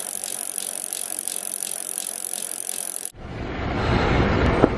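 A steady high hiss with evenly spaced ticks, then, after a sudden cut about three seconds in, louder wind buffeting the microphone, with one sharp click near the end.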